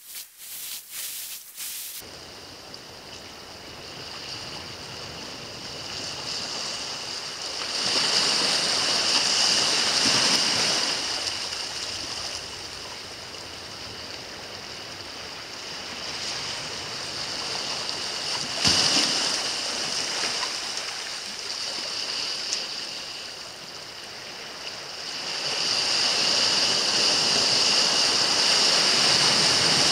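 Sea surf washing over shore rocks, a steady rush that swells louder about a quarter of the way in and again near the end. There is a single sharp knock about two-thirds of the way through.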